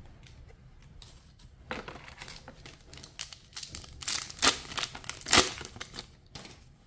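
Foil trading-card booster pack wrapper crinkling as it is handled and torn open by hand. The loudest rips come about four seconds in and again about five and a half seconds in.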